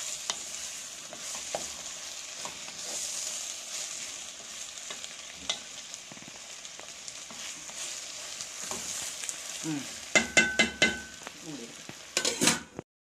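Chopped okra, potato and onion sizzling in oil in a stainless steel pan while a wooden spatula stirs them, with small scraping clicks. About ten seconds in comes a quick run of sharp knocks on the pan that ring briefly, then a louder clatter before the sound cuts off suddenly.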